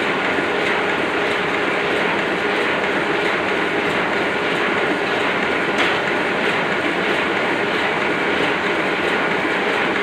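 Oliver offset printing press running at normal operating speed, giving a dense, steady mechanical clatter with fine rapid ticking and a faint steady whine.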